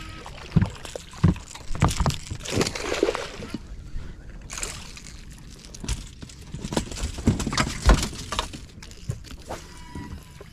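Hooked striped bass splashing at the surface as it is reeled to the boat and brought over the side, with irregular knocks and thumps against the boat.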